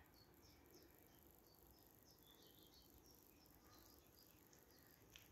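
Near silence: faint, scattered high chirps of small songbirds, with one soft click near the end.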